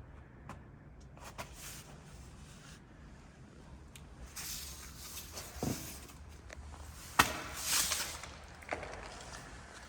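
Footsteps and scattered knocks and scuffs, with one sharp knock about seven seconds in followed by a brief scrape.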